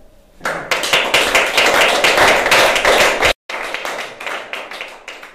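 Small audience applauding: dense clapping starts about half a second in, then thins out and fades near the end. The sound cuts out for an instant a little past the middle.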